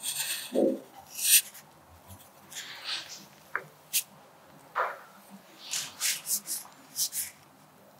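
A sharpened wooden pencil scratching across paper in short, separate strokes, writing script letters one stroke at a time with brief pauses in between.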